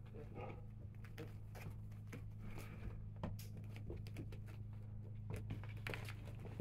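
Faint pattering, scuffing and light clicks of three-week-old Goldador puppies' paws moving about on towels and a plastic whelping pool, over a steady low hum.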